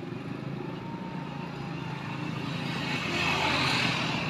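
Road traffic: a steady engine hum, with a vehicle passing more loudly about three seconds in, its sound swelling and then easing off.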